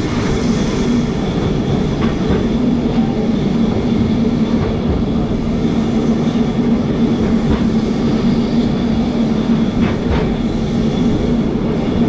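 Carris Remodelado heritage tram running, heard from inside the car as it climbs a steep grade: a steady electric motor hum over the rumble of the wheels on the rails, with a few sharp clicks from the track.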